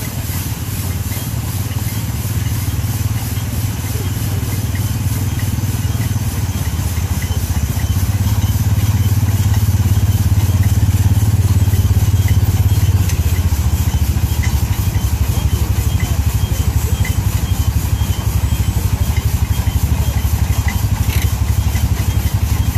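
A 1913 Aultman Taylor steam traction engine belt-driving a threshing machine under load as bundles are fed in. It makes a steady low drone with light rattling and clatter, a little louder in the middle.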